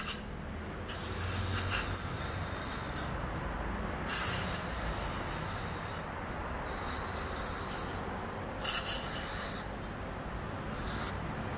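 Aerosol cleaner hissing from its can as it is sprayed onto a removed throttle body, in spurts of a second or two with short pauses. The spray is washing dirt and carbon deposits out of the throttle body during a tune-up.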